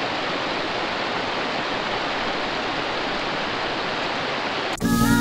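Shallow river water running over a stony bed, a steady even rush. It cuts off abruptly near the end as music comes in.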